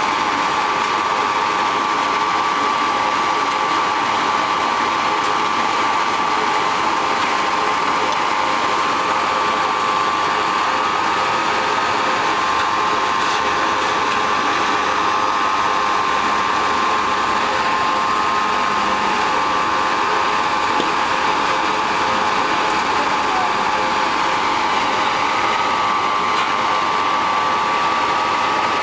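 Organic manure fertilizer granulator running under its electric motor drive, a constant machine whirr with a steady whine held at one pitch.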